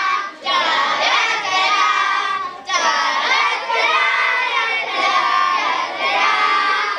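A group of children singing together, in phrases with brief breaks about half a second and two and a half seconds in.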